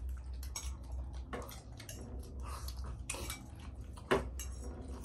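Metal spoons and forks clinking and scraping against small steel bowls and plates while people eat, in many short, sharp clicks, with one louder one about four seconds in.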